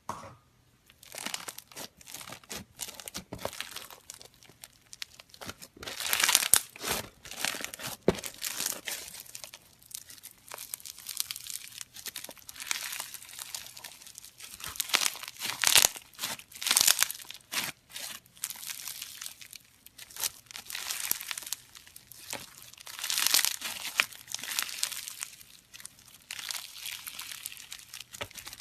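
Slime being squeezed and worked by hand, crackling and crunching with many small pops that swell and ease in waves. It starts about a second in.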